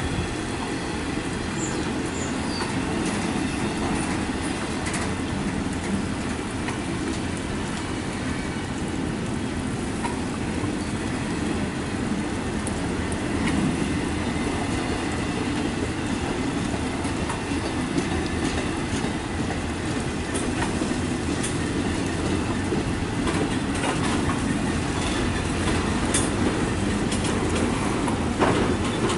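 Intermodal freight train of trailer and double-stack container cars rolling steadily past, its wheels clicking over rail joints, the clicks coming more often near the end.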